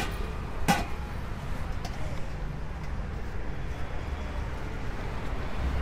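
Roadside street ambience: a steady low rumble of passing traffic, with a single sharp knock under a second in.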